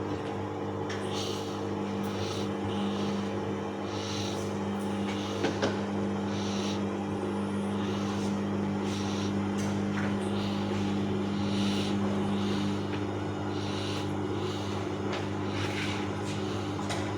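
Bauknecht WAS 1400 washing machine running a wash: a steady electric hum with a swish of water in the drum roughly every second. One hum tone stops about 13 seconds in.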